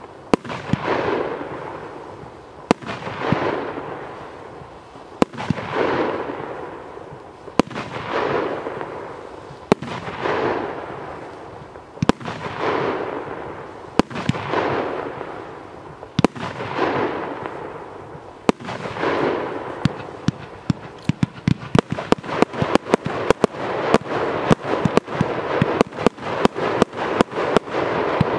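Evolution Fireworks Luna 3 Category 4 firework firing shots about every two seconds. Each is a sharp report followed by about two seconds of crackling that fades. From about two-thirds of the way in, the shots come much faster, several sharp reports a second.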